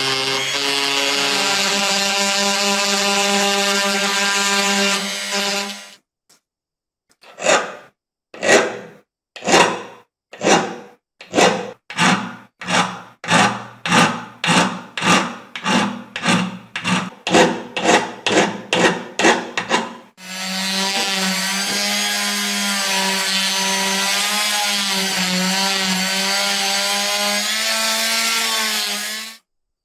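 A rotary tool runs steadily at a held pitch, working on a small brass lighter. About six seconds in it stops, and a metal hand file scrapes in about twenty strokes that quicken to roughly two a second. The rotary tool then runs again and cuts off just before the end.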